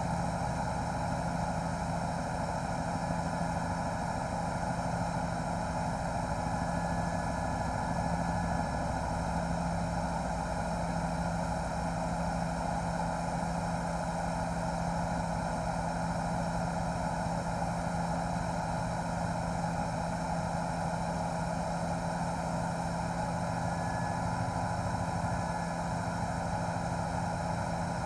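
Steady drone of a helicopter's engine and rotor, heard from on board, with a strong low hum and even overtones that do not change.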